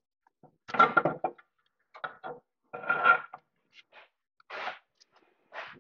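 Metal parts clunking and scraping as a steering knuckle with a new wheel hub is worked onto a greased axle shaft's splines. It comes as a string of short knocks and rattles, loudest about a second in and again about three seconds in.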